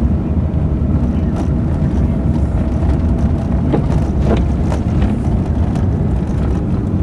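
Steady low rumble of a car driving, heard from inside the cabin, with a few faint ticks about halfway through.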